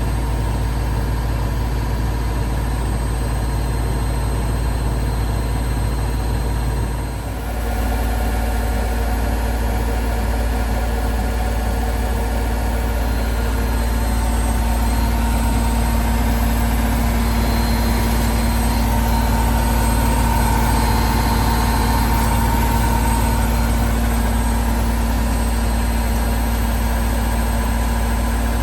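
Logik L712WM20 washing machine running with a steady low drone. The drone dips briefly about seven seconds in. A higher motor whine swells and fades in the middle.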